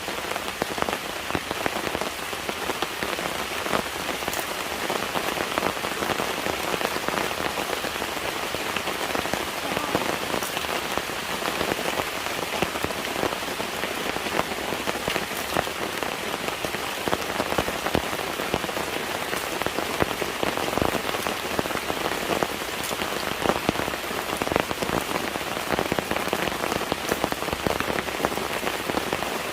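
Steady rain falling, with many separate drop hits ticking on a close surface over an even hiss.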